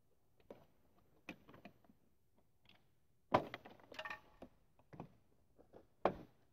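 Plastic rear pillar trim panel of a Honda Accord being pried loose by hand: scattered clicks and knocks, with a sharp crack about three and a half seconds in and another near the end.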